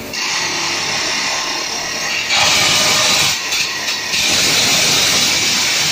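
Jumbo drill rig's rock drill drilling into the rock face: a loud, steady mechanical hiss and rattle that gets louder about two seconds in, dips briefly near four seconds, then picks up again.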